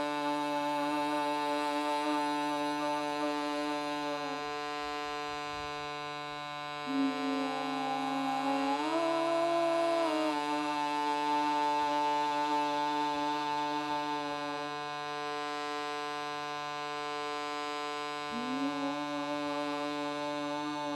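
Shruti box sounding a steady reed drone while a voice sings long held notes over it. Each note slides up into pitch. The voice breaks off twice, then steps up to a higher note around the middle and settles back down.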